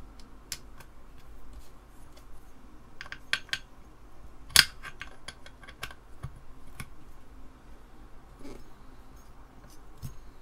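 Scattered small clicks and taps of metal parts being handled on an Apple Disk II floppy drive's spindle assembly, with one sharp, louder click about four and a half seconds in.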